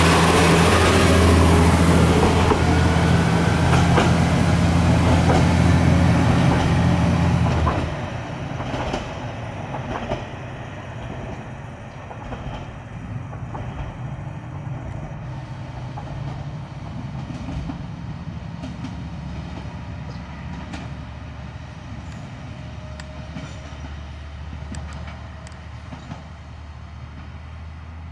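Nagara Railway diesel railcars running out past the platform with a loud, steady engine drone, wheels clicking and a rising whine in the first few seconds. After about eight seconds the sound drops to a quieter diesel railcar running along the track, with scattered clicks from the wheels and a low engine drone.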